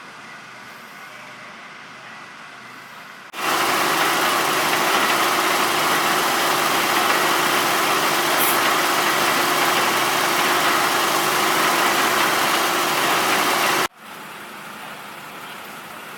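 An engine running steadily at close range. It cuts in suddenly about three seconds in, much louder than the low hum before it, and cuts off abruptly near the end.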